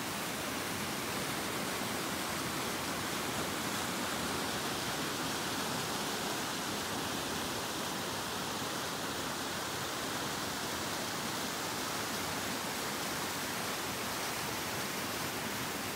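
A shallow rocky stream pouring over boulders in small cascades: a steady, even rush of white water.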